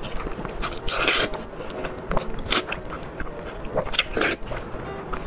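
Close-up mouth sounds of a person eating spicy braised pork off the bone: wet biting, sucking and chewing in irregular bursts, the loudest a little after one second in and around four seconds in.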